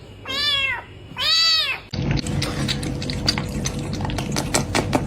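A cat meowing twice, each meow rising and then falling in pitch. About two seconds in, the sound switches abruptly to a stretch of rapid clicking and rustling with a low rumble.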